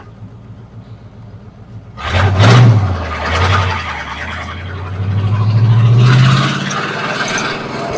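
Flathead V8 engine of a Model A hot rod roadster under way. It hums quietly at first, then about two seconds in it turns much louder and revs up as the car accelerates, easing off and climbing in pitch again in a second pull.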